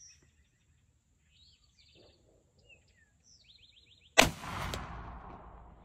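Pedersoli reproduction 1862 Richmond rifle musket, a .58 calibre percussion black-powder muzzleloader loaded with 75 grains of 2F powder, fires once about four seconds in: a single loud shot whose echo trails off over the next second and a half. Faint bird chirps come before the shot.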